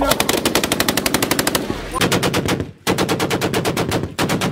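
Machine gun firing long automatic bursts at about ten shots a second: a burst of nearly two seconds, a short lull, a burst of just over a second, a brief break, then sustained firing again.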